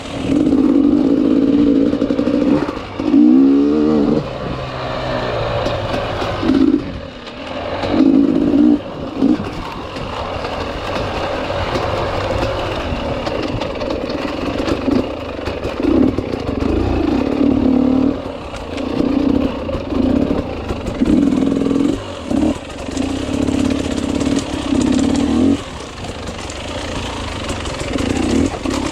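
Enduro motorcycle engine under hard throttle, revving up and easing off again and again, with a rising climb in pitch a few seconds in.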